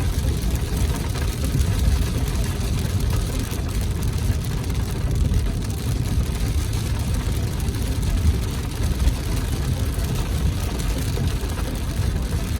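Car driving on a wet road, heard from inside the cabin: a steady low rumble of engine and tyres with an even hiss above it.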